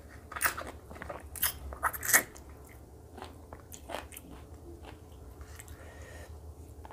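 Close-miked mouth chewing a bite of curry-coated boiled egg: a quick run of wet smacks and clicks over the first two seconds or so, then softer, sparser chewing.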